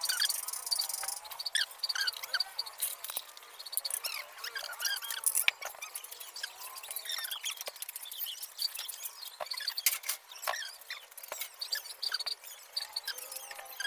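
An aluminium sliding-door frame and its glass pane being handled: a few sharp clicks and taps amid many short, high squeaks and chirps.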